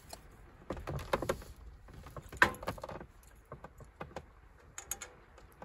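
A run of clicks, knocks and light clinks of small objects being handled, with a sharper knock about two and a half seconds in and a few high clinks near the end.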